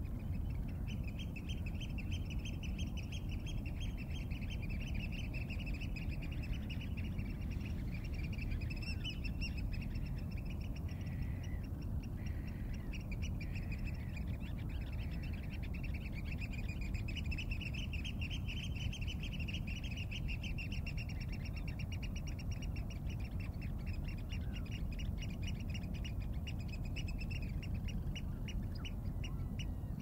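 Nature-sound ambience: a fast, rapidly pulsed trilling animal call runs almost throughout over a low steady rumble, thinning out for a few seconds near the middle.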